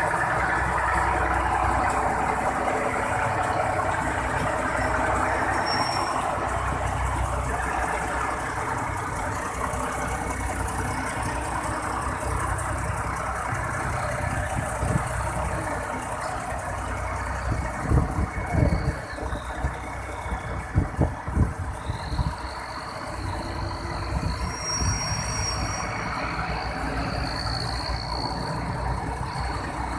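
Diesel truck engine idling with a steady low rumble, broken by a cluster of knocks a little over halfway through. A thin high whine joins in the last third.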